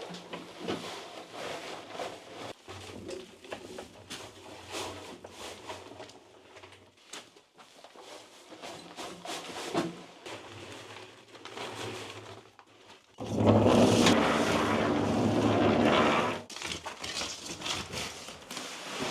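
Concrete work: scattered knocks and scraping, then a loud rushing noise with a low hum for about three seconds near the end.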